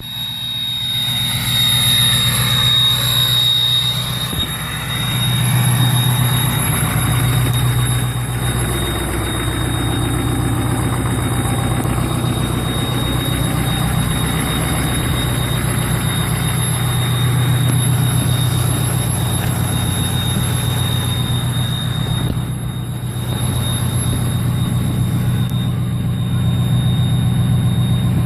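Ford 6.0 Powerstroke V8 turbodiesel running at high idle, its turbocharger giving a loud, steady high-pitched whistle over the even low hum of the engine.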